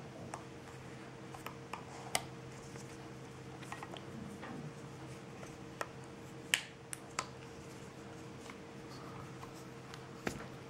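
Handling noise from a black rubber sleeve being stretched and fitted onto a SMOK G-Priv box mod: soft rubbing with scattered light clicks and taps, and a handful of sharper snaps. A faint steady hum runs underneath.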